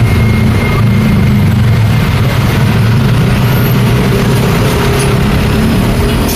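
Busy road traffic: vehicle engines and tyres from passing cars and trucks, making a loud, steady rumble.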